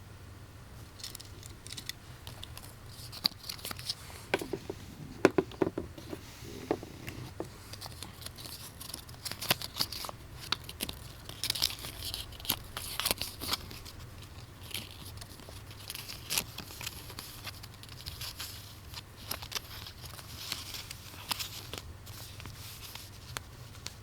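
Thin plastic wrapping crinkling and tearing, mixed with irregular clicks and taps of small plastic parts being handled.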